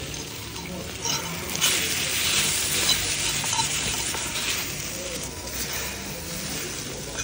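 Fried eggs and thin slices of beef sizzling in a hot iron serving pan, with a few light clinks of a fork against the pan.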